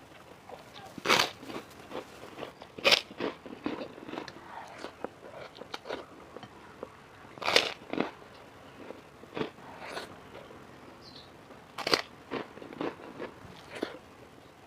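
Close-miked eating: a person biting into crunchy food and chewing. There are four loud crunches a few seconds apart, with smaller crackling bites and chewing between them.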